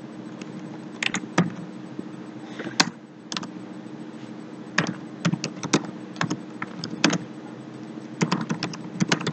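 Typing on a computer keyboard: irregular keystroke clicks, single and in quick little clusters, over a steady low hum.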